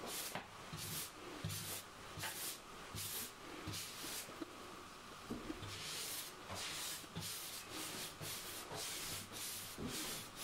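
Paintbrush strokes laying a thin coat onto a cabinet's side panel: a soft scratchy swish back and forth, about two to three strokes a second.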